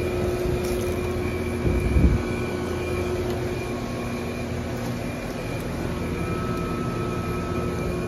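Nearby residential heat pump outdoor units running in cool mode: a steady hum from compressors and condenser fans over a whooshing airflow. A brief louder low rumble or handling thump comes about two seconds in.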